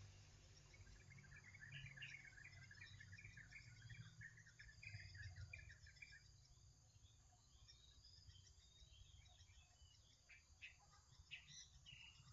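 Near silence: faint background ambience with soft, short high chirps scattered through it.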